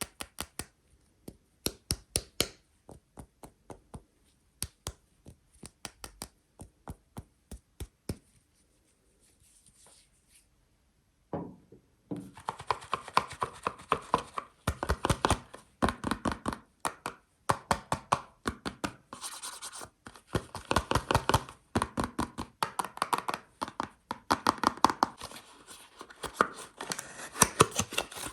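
Hands unwrapping and handling a bar of soap and its packaging. A run of sharp taps and clicks comes first, then a short lull, then from about twelve seconds in a dense stretch of scratching and crinkling with sharp clicks.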